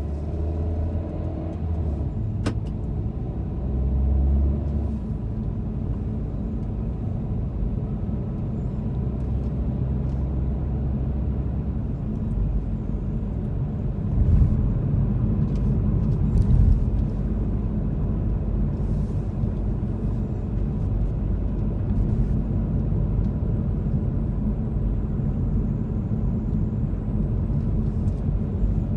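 Car driving on city streets: steady low rumble of engine and tyre noise, swelling a little now and then, with a single sharp click a couple of seconds in.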